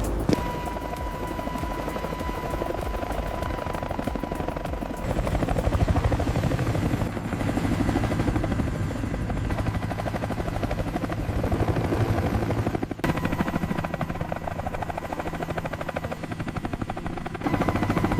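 Helicopter in flight, its rotor blades chopping rapidly and steadily under a thin steady whine, getting louder about five seconds in.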